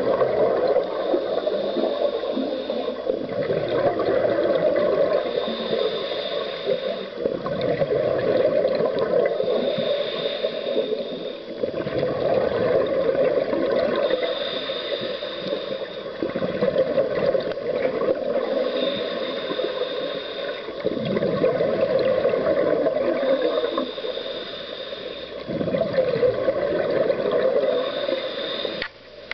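Scuba diver breathing through a regulator underwater, about seven breaths. Each cycle is a hissing inhale with a thin whistle, then a low gurgle of exhaled bubbles, repeating every four to five seconds.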